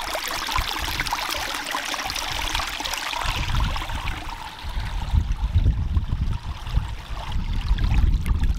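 Shallow stream of water rushing and splashing over mud and dead grass. From about three seconds in, gusty wind buffets the microphone under the water sound.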